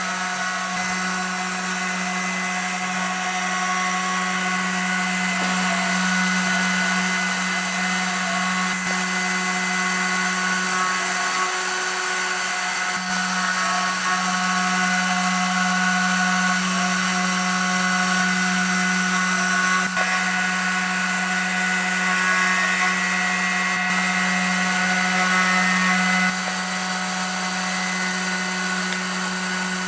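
CNC router spindle running while the machine mills, a steady whine of several held tones over cutting noise, dropping slightly in level a few seconds before the end.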